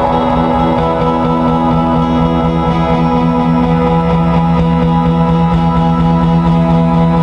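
Live music: sustained electric guitar tones ringing together in a droning, unbroken texture, the harmony shifting about four seconds in.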